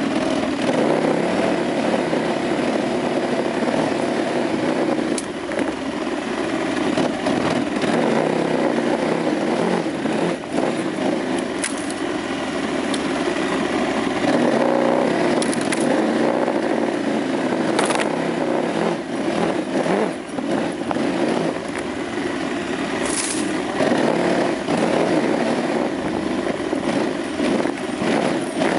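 KTM 950 Adventure motorcycle's V-twin engine running under way on a dirt trail, its pitch rising and falling with the throttle, under a steady rush of noise. A few sharp clicks stand out, about four times.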